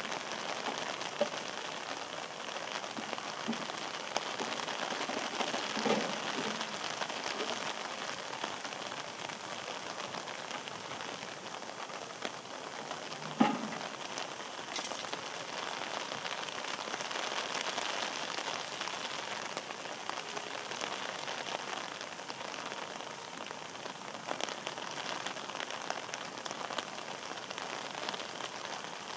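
Steady rain falling on wet pavement and plants, with two brief sharp knocks, the louder one about halfway through.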